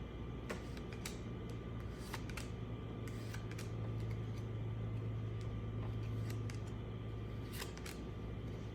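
Baseball trading cards and their pack being handled: scattered light clicks and rustles over a steady low hum.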